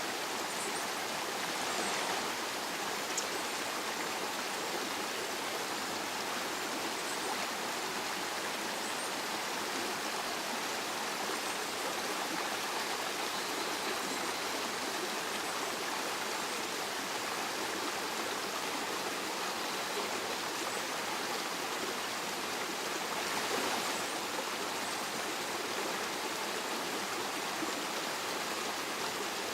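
Steady rush of flowing stream water, with slight swells about two seconds in and again near twenty-three seconds.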